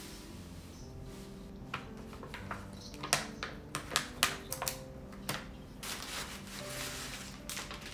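A kraft paper envelope being handled as the backing strip is peeled off its flap's adhesive: a run of sharp paper crackles, then a longer rustle about six seconds in, over soft background music.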